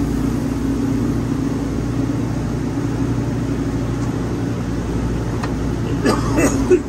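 Wood-Mizer LT40 portable sawmill running steadily with an even engine drone. A brief voice-like sound cuts in near the end.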